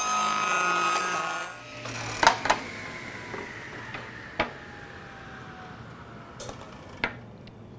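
Table saw ripping a thin waste strip off a board's edge: a loud, high, ringing whine that stops about a second and a half in as the cut ends. Then come two knocks as the board is handled, while the blade spins down with a faint, slowly falling tone, and a few light clicks near the end.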